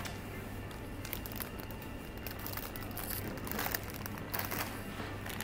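Plastic produce bags crinkling and rustling as they are handled, in bursts that are loudest about three and a half to four and a half seconds in, over a steady low hum.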